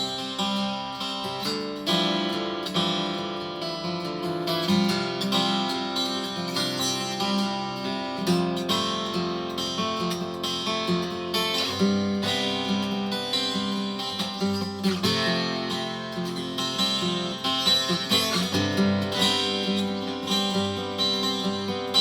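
Yamaha FG820-12 twelve-string acoustic guitar being played, strummed and picked chords ringing continuously.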